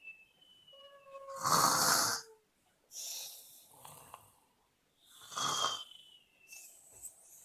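Pretend snoring: about four noisy snore breaths, the loudest about one and a half seconds in and another about five seconds in, with thin, slightly falling whistle tones between them.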